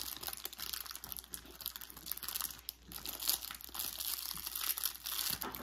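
Crinkly packaging rustling and crackling irregularly as a blind-packaged squishy toy is unwrapped and handled.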